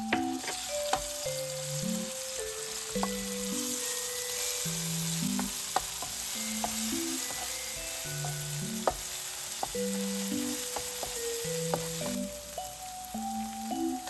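Food sizzling in a frying pan, with scattered taps and scrapes of a utensil against the pan, under light background music with a melody of held notes. The sizzle drops away about twelve seconds in.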